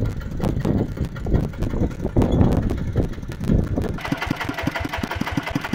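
Single-cylinder diesel engine of a two-wheel walk-behind tractor running. At first the low thumps are uneven, mixed with some hiss. After an abrupt change about four seconds in, the engine fires in an even beat of about six strokes a second.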